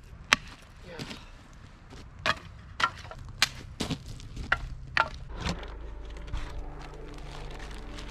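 Dry dead branches snapped into lengths for firewood: a string of sharp woody cracks about every half second. After about five seconds soft background music with long held notes comes in.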